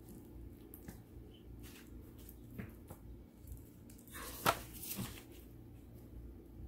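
Metal spoon spreading a soft ricotta and ground-beef mixture over lasagna noodles: faint squishing and scraping, with a sharper tap about four and a half seconds in, over a low steady hum.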